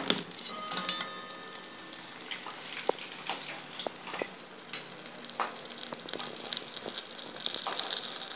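Hot deep-fried urad dal fritters (boras) hissing and crackling as they are dropped into cold sugar syrup and the syrup soaks into them, with a few sharp taps as they go in. The hiss grows stronger near the end.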